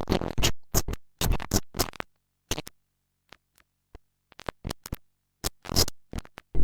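Electronic music made of sharp, staccato hits and scratch-like stabs, dropping almost to silence for about two seconds midway before the hits return.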